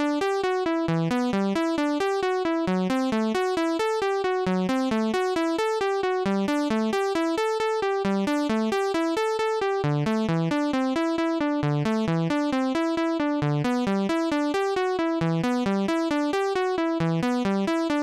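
Software synthesizer playing a latched, scale-quantized arpeggio in quick, even sixteenth notes. The pattern is transposed up and down as new keys are played, staying in E minor.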